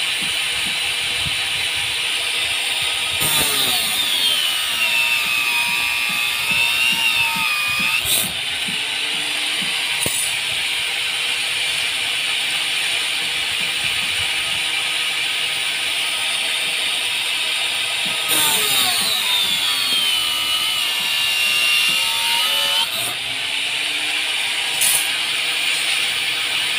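Angle grinder with an abrasive cut-off disc cutting steel reinforcing bar, twice. Each cut pulls the motor's whine down in pitch for about five seconds, and the whine springs back up as the disc breaks through, followed by a short clank.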